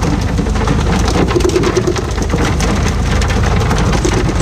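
Fishing boat's engine running under a steady rush of splashing sea water and wind, with scattered knocks and clatter on deck as tuna are pole-fished.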